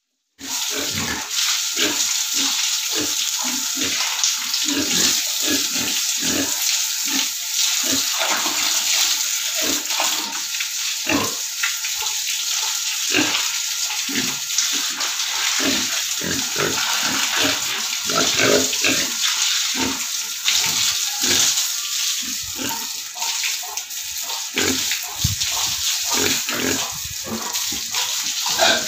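Garden hose spraying water onto a wet concrete pig-pen floor and onto pigs, a steady hiss with splashing, while the pigs grunt over and over in short bursts.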